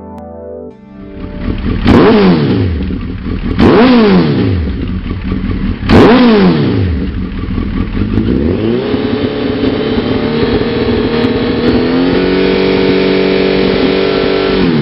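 Suzuki GSX1300R Hayabusa's inline-four engine through a Lextek OP1 aftermarket silencer: after the last second of intro synth music it idles and is blipped sharply three times, each rev rising and falling quickly, then is held at a steady higher rev that steps up once more near the end.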